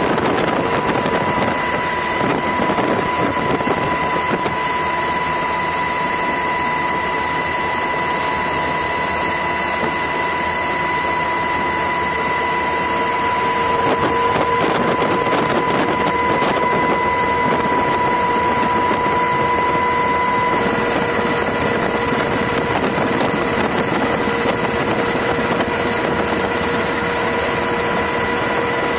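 Steady rush of wind and engine noise at sea, with a constant high whine running through it that shifts pitch about two-thirds of the way through.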